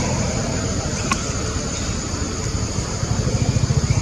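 Low rumble of a nearby motor vehicle's engine, turning to a rapid, even throb near the end, over a steady high-pitched hum. A single short click about a second in.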